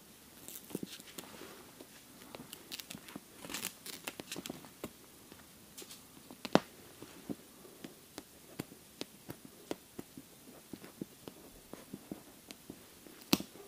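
Backing film being peeled off self-adhesive bitumen-based Flexband sealing tape and the tape pressed on by hand, giving scattered crackles, rustles and sharp ticks. A louder snap comes about six and a half seconds in and another near the end.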